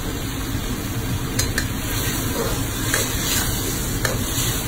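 Ginamos (salted anchovies) with tomato and garlic sizzling and bubbling in a metal frying pan, with a few light clicks and scrapes of a spatula stirring it. A steady low rumble runs underneath.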